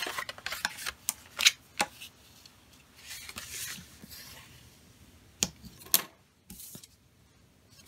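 Bone folder rubbing along folded cardstock to crisp the creases, with a few light taps and clicks of paper and tool handling.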